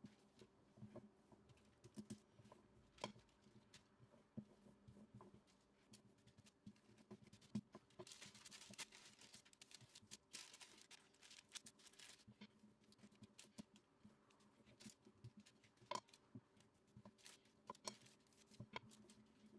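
Wooden rolling pin rolling out soft cookie dough on parchment paper, with scattered light clicks and knocks. About eight seconds in, a crinkly rustle for several seconds as a thin clear plastic film is laid over the dough, then soft taps and rubbing as hands smooth it down.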